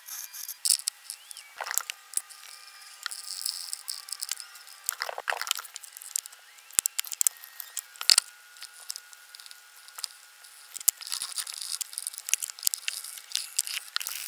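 Scattered light clicks, taps and rustles as a bow thruster's plastic seal ring and motor unit are handled and fitted into place by hand.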